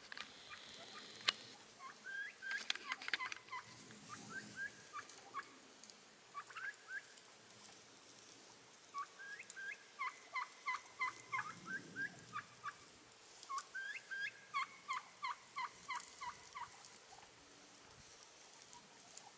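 A flock of wild turkeys calling: short, clipped notes repeated in runs of several a second, coming in bursts and dying away near the end.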